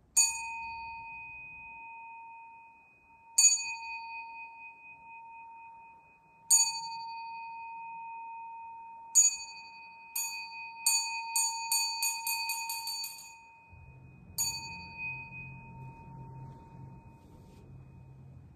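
Buddhist temple bell struck four times, about three seconds apart. Then comes a run of strikes that speeds up into a quick roll, and one last strike that rings on. This is the bell pattern that marks bows in a Zen service.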